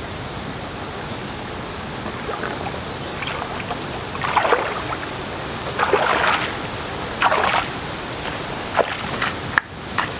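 Footsteps sloshing and splashing through shallow muddy water, a heavy step about every second and a half from about four seconds in, over a steady hiss. Near the end come a few short, sharp crackles as the steps reach the reedy, muddy bank.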